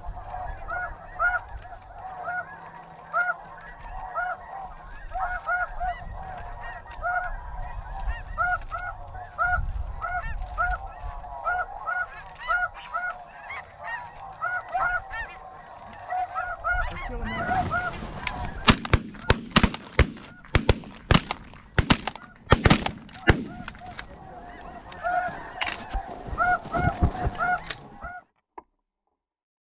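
Snow geese calling: a dense, steadily repeating chorus of high honks. From about seventeen seconds in, a loud rushing noise joins it, with a quick run of sharp, loud cracks. All of it cuts off shortly before the end.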